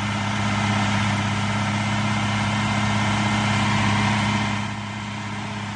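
An engine running steadily with an even low hum, easing off slightly about four and a half seconds in.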